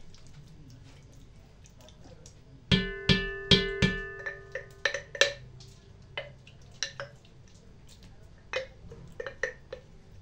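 Wooden spoon scraping food out of a glass jar into an enamelled cast-iron pot: a quick run of about five knocks with a ringing tone about a third of the way in, then scattered light clicks and taps.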